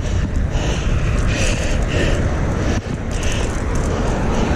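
Wind buffeting the microphone of a camera carried on a moving bicycle: a steady low rumble with a hiss that swells and fades about twice a second.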